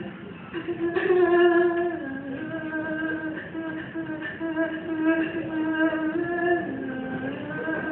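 Singing: a voice holding long, drawn-out notes, dropping to a lower note briefly twice.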